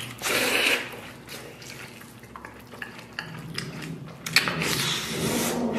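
Wet eating sounds of a man biting and chewing meat off a braised lamb leg: sucking and chewing, loudest in the first second, then quieter with scattered clicks of lips and teeth, and louder again near the end.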